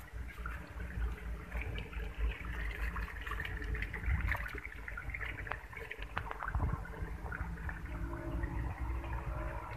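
Wind buffeting the microphone in a low, uneven rumble, with faint scattered clicks and chirps above it.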